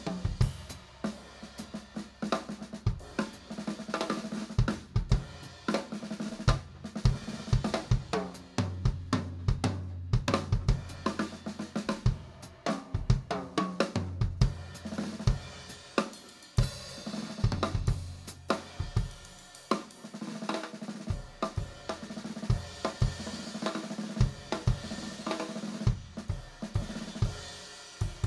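Live jazz band playing with the drum kit loudest: dense snare and tom strokes, cymbals, hi-hat and bass drum, with bass notes held underneath in places.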